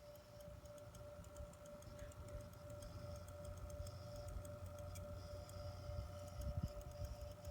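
Corsair CX750M computer power supply making rapid, irregular clicking, over a steady whining tone and a low hum.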